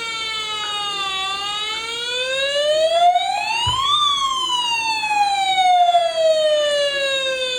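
Electronic wail siren of a toy RC fire rescue truck, one clear tone gliding slowly down, then up to a high peak about four seconds in, then down again.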